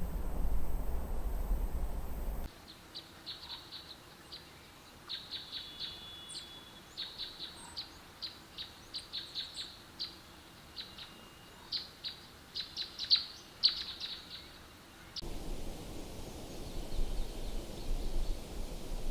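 Birds chirping: a quick run of short, high chirps, some in clusters, with a low noisy rumble cutting off before them and another cutting in after them near the end.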